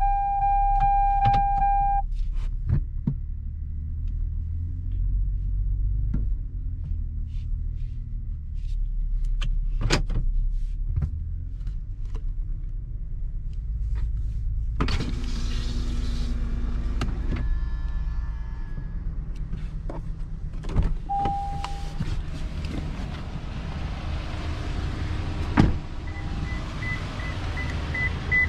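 Cabin sound of a 2022 Toyota Tundra pickup manoeuvring slowly: a steady low engine and road rumble with scattered clicks. A chime tone stops about two seconds in and sounds again briefly later. Near the end comes a quick run of high beeps.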